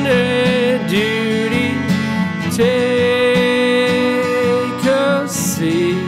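Acoustic guitar and cello playing an instrumental passage: steady strumming under a melody of long held notes that slide from one pitch to the next.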